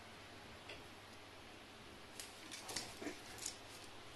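Faint, irregular clicks and ticks over a quiet room hum, one early and a cluster between about two and three and a half seconds in.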